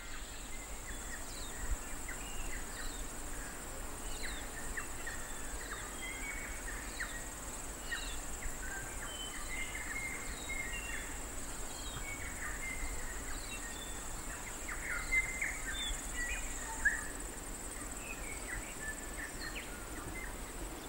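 Quiet outdoor nature ambience: a steady high insect chirring, like crickets, with many short bird chirps scattered through it.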